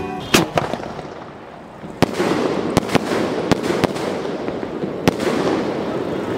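INF Elephant brand 'Pisa' multi-shot sky shot firing. There is a launch report about a third of a second in, then a string of sharp bursts at about two, three, three and a half, four and five seconds, with dense crackling between them.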